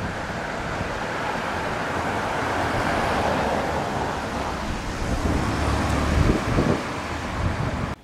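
Typhoon wind gusting and buffeting the microphone: a steady rushing that swells about three seconds in, with low rumbling buffets between five and seven seconds.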